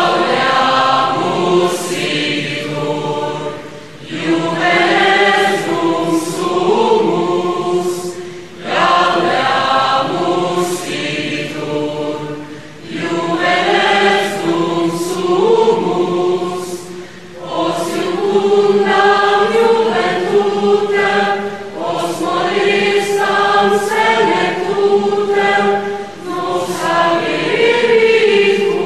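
Background music: a choir singing in phrases a few seconds long, with short pauses between them.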